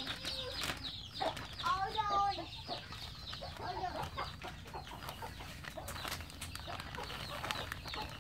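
Chickens clucking, with rapid high-pitched chirping running underneath.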